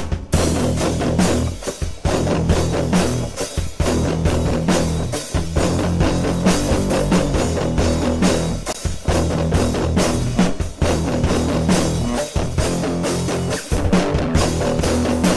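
Rock music with guitar and drums, a steady beat running throughout.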